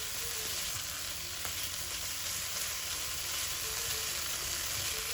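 Spice paste frying in oil in a pan with bay leaf and lemongrass, a steady sizzle, with a few light clicks.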